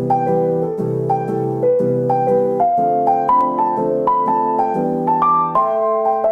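Gentle piano intro music: soft chords repeating under a simple melody of single notes.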